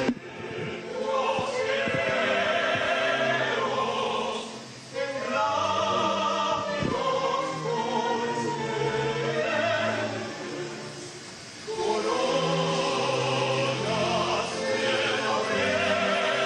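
Choir and orchestra performing classical vocal music: sung phrases over sustained orchestral notes, with two short pauses between phrases, a little before the third and near two-thirds of the way through.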